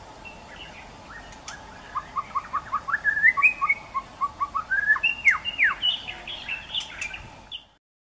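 White-rumped shama (murai batu) singing: after a few faint calls, a rapid run of short chirps builds into loud, varied whistles with sharply falling notes, then stops just before the end.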